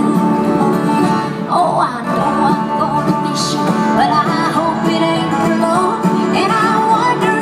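Live country band music with a bluegrass feel, guitar to the fore, played through a concert hall's sound system.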